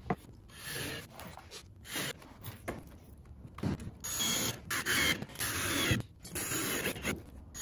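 Cordless drill driving small screws into thin luan plywood panels in a series of short runs, with brief pauses between them.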